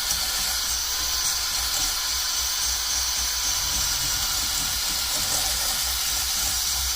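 Battery drill spinning a spring-loaded cylinder hone inside an oiled motorcycle cylinder barrel: a steady, loud abrasive hiss over a low rumble as the stones smooth out light marks in the bore.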